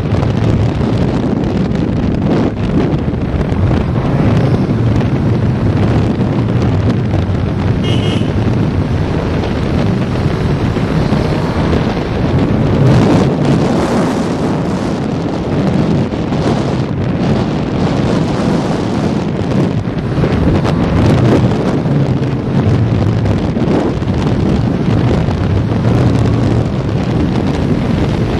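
Heavy wind noise buffeting a helmet-mounted camera microphone while riding a 1985 Honda CB650SC Nighthawk motorcycle at speed. The bike's air-cooled inline-four engine runs underneath as a low, steady drone.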